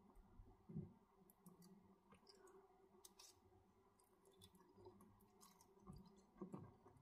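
Faint close-miked eating sounds: a fork lifting sauce-coated black bean ramen noodles, a mouthful taken and chewed, with small wet mouth clicks scattered throughout.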